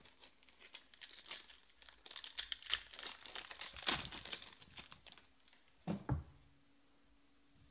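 Silver foil wrapper of a trading-card pack crinkling and tearing as it is pulled open by hand, loudest about four seconds in, followed by a short low sound about six seconds in.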